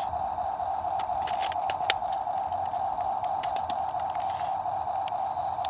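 Small electric motors of a remote-control toy excavator whining steadily, with scattered light clicks and one sharper click about two seconds in.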